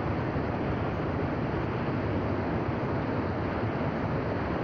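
Whitewater rapids rushing steadily: a continuous, even noise of churning river water.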